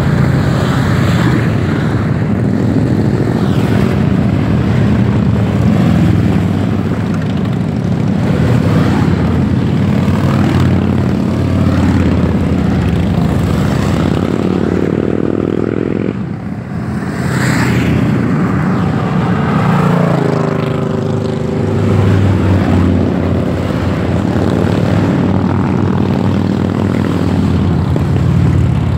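Large cruiser motorcycles riding past one after another, their engines running loud and continuous, with the pitch shifting as single bikes pass close by around the middle and again a few seconds later.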